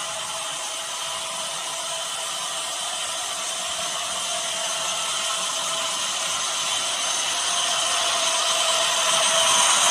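HO scale model freight train, led by a GE Dash 9-44CW model locomotive, running on the layout track: a steady mechanical whir and rattle from the motor and the wheels on the rails. It grows steadily louder as the train approaches.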